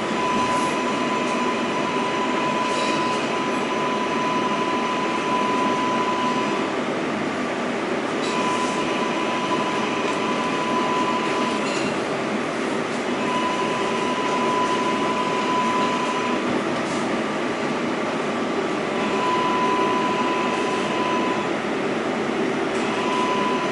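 Kawasaki-built R188 subway car running at speed, a steady rumble of wheels on rail heard from on board. A steady high wheel squeal comes and goes about five times.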